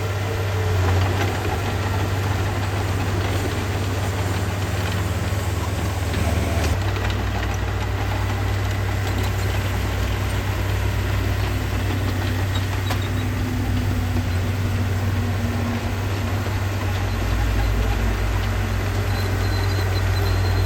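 Heavy diesel engine of earthmoving equipment running steadily with a deep, continuous hum, dropping lower about three-quarters of the way through.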